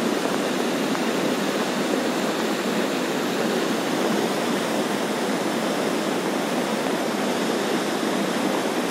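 Steady rushing of a mountain stream swollen in flood, a loud even noise that does not let up.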